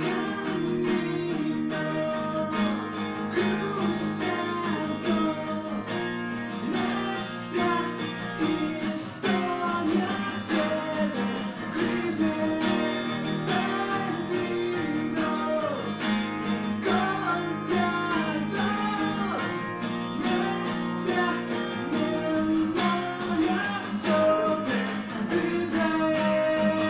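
Two acoustic guitars strummed in a live acoustic rock song, with a man singing over them.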